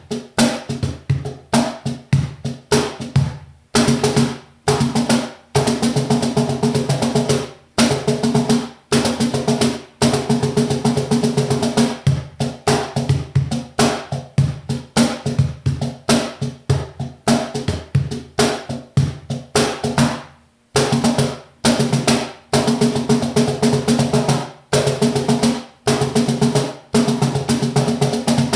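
KEO Percussion standard cajon played by hand in fast rhythmic patterns and rolls, deep bass strokes mixed with sharp slaps that set the internal snare wires buzzing, with a few brief pauses between phrases.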